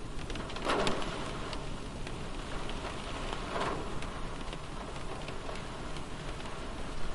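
Light rain on a car, heard from inside the cabin: a steady patter with scattered drop ticks. Two louder splats come, one about a second in and one about halfway through.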